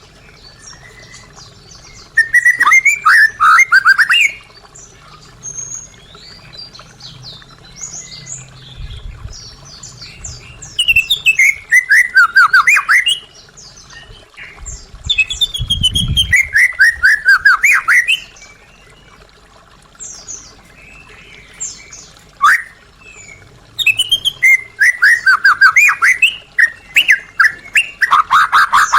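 White-rumped shama (murai batu) singing: loud bursts of rapid, sweeping whistled notes a few seconds apart, with quieter twittering between the phrases.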